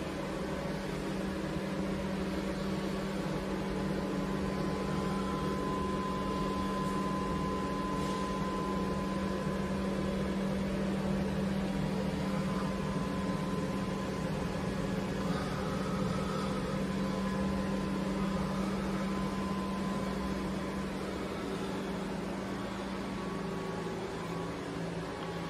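Steady hum of running machinery: a low drone with a faint, thin higher whine that comes and goes.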